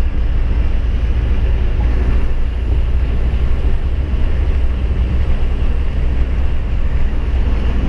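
Heavily loaded truck on the move, its engine and road noise a steady low rumble.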